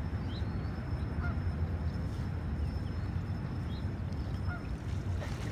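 A few faint, short waterfowl calls over a steady low rumble.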